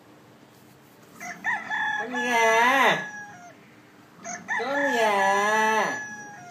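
Recorded rooster crowing twice, each crow about two seconds long, rising and then falling in pitch, played from a tablet's speaker.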